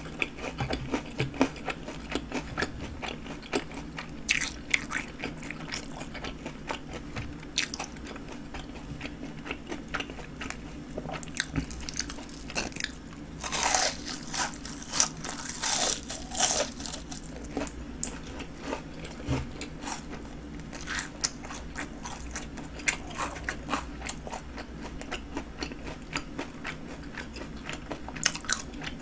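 Close-miked crunching and chewing of breaded, deep-fried king prawns: many crisp crackling bites of the crumb coating, densest and loudest about halfway through.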